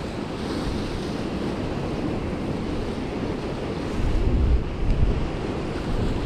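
Strong wind buffeting the microphone over the steady wash of sea surf, with heavier gusts about four to five seconds in.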